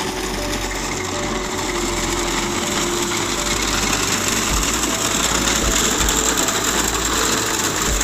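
Tractor-mounted wheat reaper cutting standing wheat: a fast, steady mechanical clatter from its cutting gear over the tractor's engine, with background music playing.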